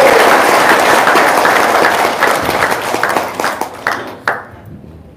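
Audience applauding, dying away over about four seconds with a few last scattered claps.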